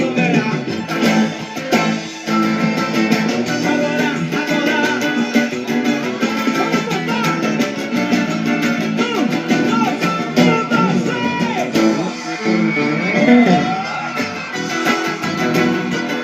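Band music with a guitar carrying the melody, playing steadily, with bending glides in the lead line.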